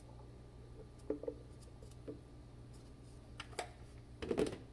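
Dry dog kibble rattling in a plastic scoop dug into a plastic storage bin, a few light scattered clicks, then a cluster of clicks as the bin's lid is pressed shut near the end.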